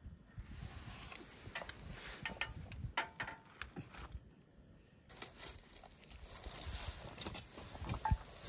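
Soft clicks and scrapes of a spoon scooping butter from a small plastic tub, with a sharper click near the end as the butter is dropped into the frying pan.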